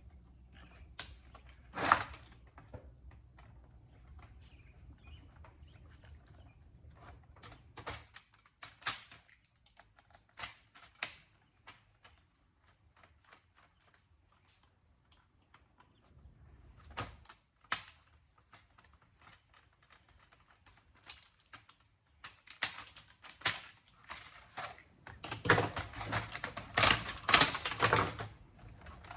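Clicks, knocks and rattles of sheet-metal and plastic parts being handled and pried while a Sony home theater unit is taken apart, with one sharp click about two seconds in and a dense burst of clattering near the end.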